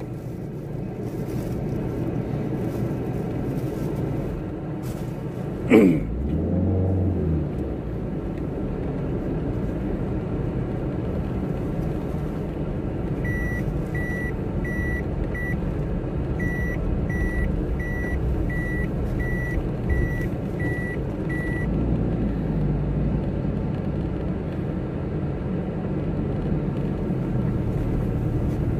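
A vehicle engine running steadily. About six seconds in there is a short, loud falling squeal. From about halfway through, a reversing alarm beeps about twice a second for several seconds, with a short break.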